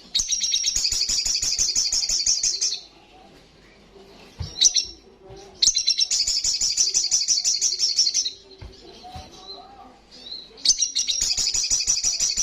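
Little spiderhunter (sogon) singing a fast chattering 'ngalas' song: three bursts of rapidly repeated high notes, each about two and a half seconds long, with a few short single notes in the pauses between.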